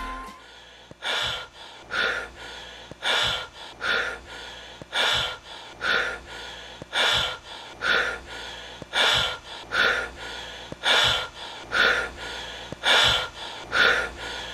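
A person breathing heavily and fast close to the microphone, one loud puff of breath about every second in a steady in-and-out rhythm.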